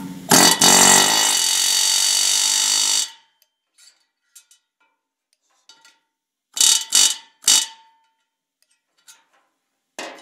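Pneumatic air hammer driving a knock-in valve guide into a cast-iron big block Chevy cylinder head: a loud buzzing run of about three seconds that cuts off suddenly. A few seconds later come three short, ringing metallic hits.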